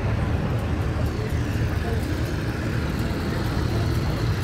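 Steady low drone of an engine running without change.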